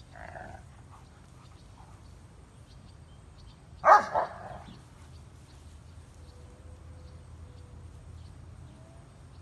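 A young large-breed dog gives a single loud play bark, doubled, about four seconds in. A fainter short call comes at the very start.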